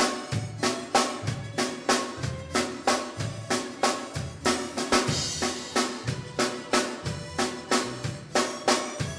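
Small band playing live: a drum kit keeping a steady beat of about three strokes a second over bass guitar and keyboard.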